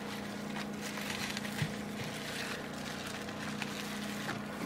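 Bubble wrap and plastic packing crinkling faintly as it is handled, with a few small clicks, over a steady low electrical-type hum.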